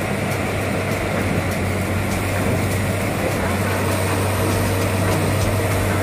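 Diesel engine of an XCMG rotary drilling rig running steadily, a constant low drone.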